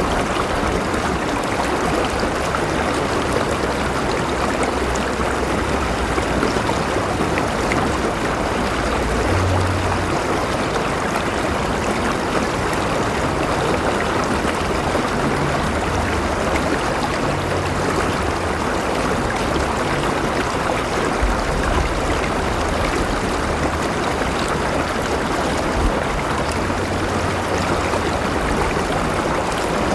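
River water flowing and babbling over stones in a steady, even rush, with a low rumble underneath.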